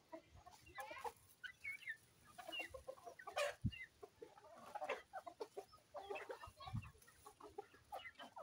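Domestic chickens clucking, many short calls overlapping from several birds, with a couple of soft low thuds among them.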